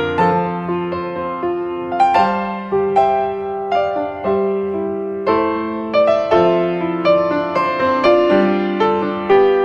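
Background music: slow piano, with a new note or chord struck about once a second, each fading before the next.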